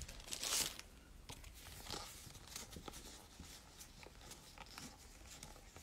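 Stiff paper photo cards and postcards being handled and fanned out: a burst of rustling in the first second, then faint scattered rustles and light taps of card edges.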